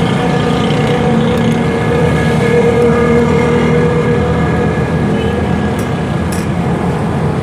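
Steady motor drone at a constant pitch over a bed of busy street noise.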